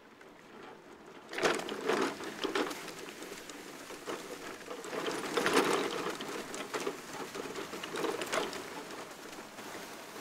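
Irregular crunching and scratching in dry grass and garden soil, in short bursts, some about half a second apart, with a longer scratchy stretch in the middle.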